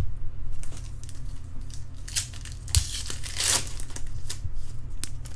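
Trading-card pack wrapper crinkling and tearing as it is opened, in a few short rushes with some sharp clicks. A steady low hum runs underneath.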